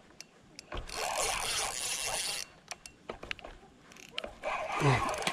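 Spinning reel whirring for under two seconds with the rod under load from a hooked fish, followed by a few light clicks.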